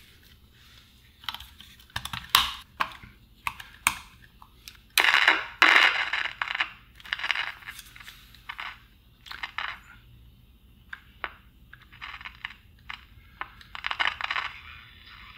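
Handling of a transistor pocket radio: batteries clicked into their metal spring clips, then the plastic case scraped and snapped shut. The result is a run of separate clicks and short scrapes, loudest about five seconds in, with another cluster near the end.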